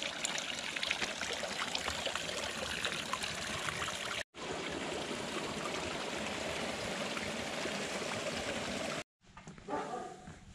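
Water trickling from a metal pipe spout and splashing into a stone fountain trough, a steady patter of small splashes. After a brief cut, a thin stream of water runs steadily into a small pool; near the end the water sound cuts off and a short, different sound follows.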